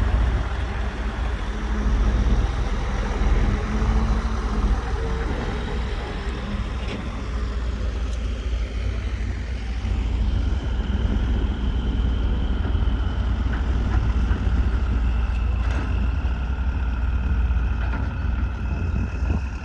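Heavy diesel machinery running with a steady low rumble, joined by a thin high-pitched whine that wavers in pitch.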